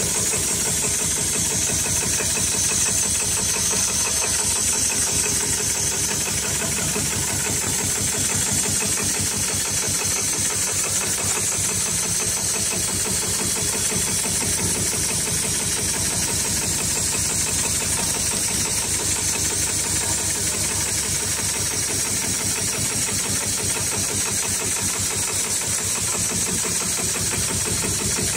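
HighTex 7273CNC heavy-duty programmable pattern sewing machine running steadily, stitching a pattern through stiff winch-strap webbing with very thick thread: a fast, even chatter of needle strokes over a steady high hiss.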